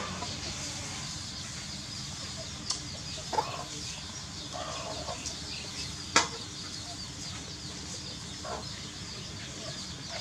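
Chickens clucking in the background over a steady high chirping, with a few sharp clicks, the loudest about six seconds in.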